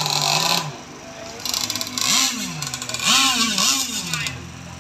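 Small gasoline engine of a radio-controlled racing boat running high, easing off about half a second in, then revved up and down about three times in short blips before dropping back.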